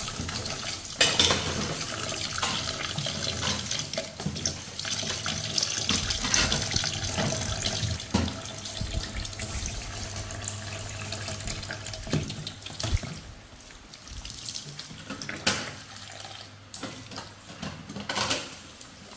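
Kitchen tap running into a stainless steel sink while dishes and a plastic basket are washed, the water flow steady, then quieter after about 13 seconds. A few sharp knocks come from the washing, about a second in and again near the end.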